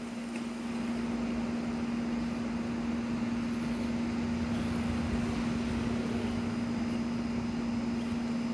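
A steady machine hum at one low pitch, unchanging throughout, over faint background noise.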